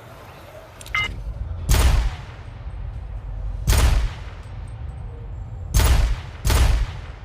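Kramer .50 Magnum pistol firing four single shots, each loud and trailing off in a long echo. The first comes nearly two seconds in, the next two about two seconds apart, and the last follows closely. A short metallic click comes about a second in, before the first shot.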